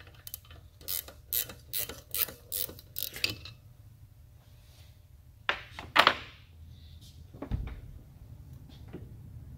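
Ratchet wrench clicking steadily, about two to three clicks a second, as the valve spring compressor's screw is turned on the cylinder head. Then a sharp metallic clatter as the steel compressor is handled, a dull thump, and a small click near the end.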